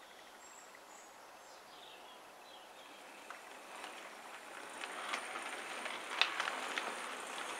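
Model BR Standard 4MT tank locomotive and tank wagons running along OO gauge track. The wheel rumble grows louder as the train comes closer, with sharp clicks over the rail joints that are loudest about six seconds in.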